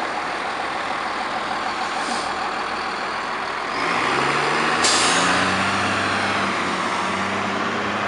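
American LaFrance aerial ladder fire truck's diesel engine running, then rising in pitch and load about four seconds in as the truck pulls away. Just before five seconds there is a sudden loud hiss of air from its air brakes.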